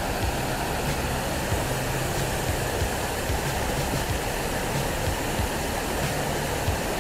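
Creek whitewater rushing and churning below a waterfall: a steady, even rush of water.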